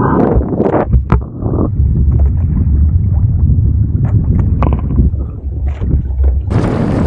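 Wind rumbling on the microphone over water splashing around a kayak on open water, with a few knocks early on. The sound turns abruptly brighter and hissier near the end.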